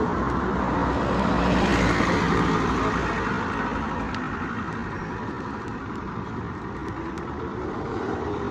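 Road traffic: a motor vehicle passes close by, loudest about two seconds in, then fading away.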